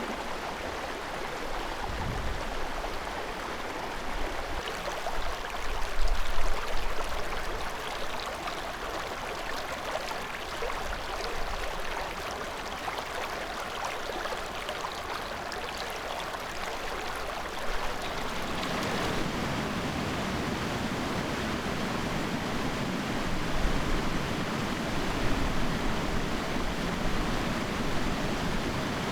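River water flowing, a steady rush with no distinct events. About two-thirds of the way through it turns fuller and deeper.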